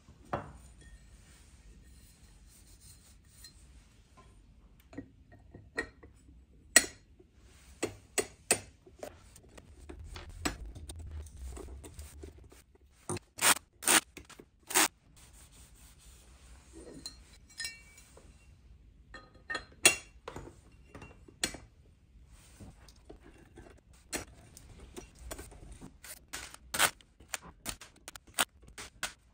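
Irregular clicks, knocks, clinks and scrapes of Snapmaker Artisan parts being handled and fitted together in assembly, with a run of three loud knocks around halfway and a brief low rumble just before.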